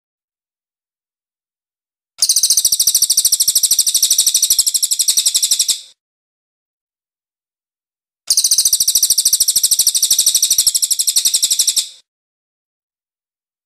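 Crested jay (cililin) calling: two runs of about four seconds each, made of fast, evenly repeated sharp high notes, separated by clean gaps of silence.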